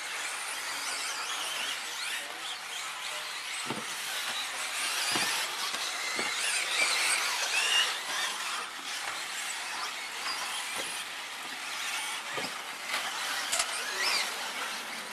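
Several 1/10-scale 2WD electric RC off-road buggies racing on a dirt track: high motor whine rising and falling as they accelerate and brake, with tyre and gravel noise. A few dull knocks are heard along the way.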